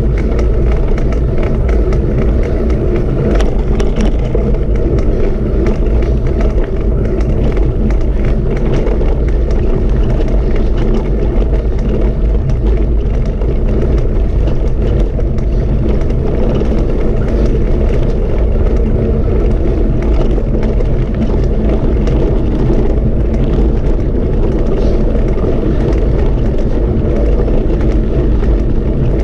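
A steady, loud low rumble that runs without a break or change.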